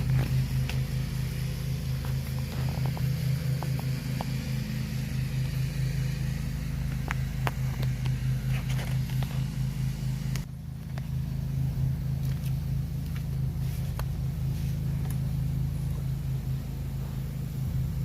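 Black & Decker LawnHog 19-inch electric lawn mower running while cutting grass: a steady, fast-pulsing motor hum with scattered light ticks. It dips briefly about ten seconds in.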